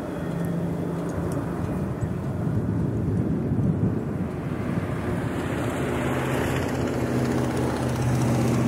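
Double-stack intermodal freight train rolling on the rails, a steady rumble with a low drone that shifts in pitch about five seconds in.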